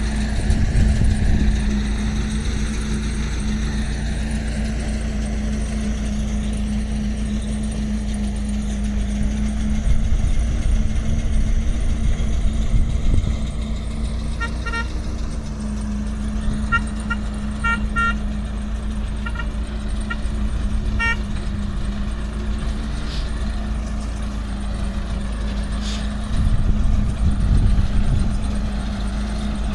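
Tractor and towed pick-up baler running steadily, with a constant engine hum and rumble. In the middle comes a run of short high beeps lasting several seconds.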